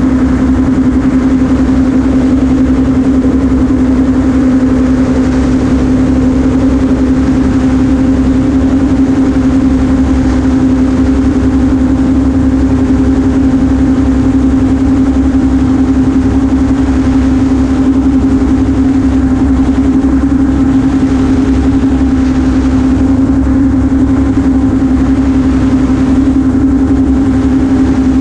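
Amphibious ultralight gyroplane in cruising flight: its engine runs at a constant power setting, a steady drone with one strong hum and a low rumble of air and rotor underneath.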